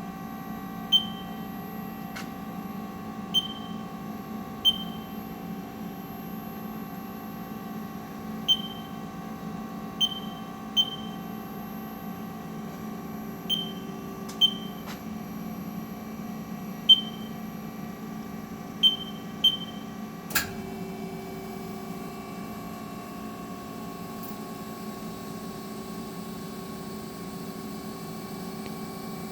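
About a dozen short high beeps at uneven intervals from the Haas ST-20 CNC lathe's control panel as keys are pressed, over the machine's steady electrical hum. About two-thirds of the way through, a sharp click is heard and a new steady hum tone sets in.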